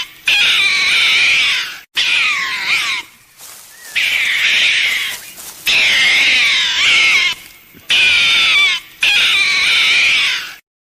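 An animal calling repeatedly: about six loud, high-pitched, wavering cries, each a second or so long, with short breaks between them. The cries stop shortly before the end.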